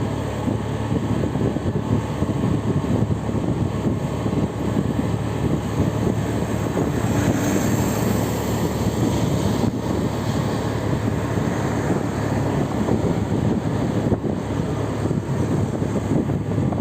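Steady rumble of a moving vehicle: engine and road noise with a constant low hum and a brief rise in hiss about halfway through.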